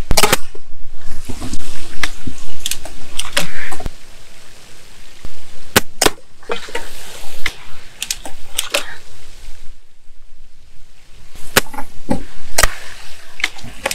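Gamo Swarm Maxxim 10X break-barrel air rifle being shot in rapid succession from its ten-shot magazine. There is a string of sharp shots and clacks, each shot followed by the barrel being broken open and snapped shut to cock the spring and feed the next pellet.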